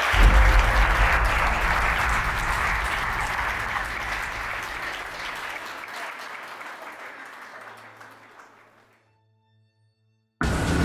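Audience applauding, a dense patter of many hands over a quiet music bed, fading out over several seconds into silence. Near the end, louder music cuts in abruptly.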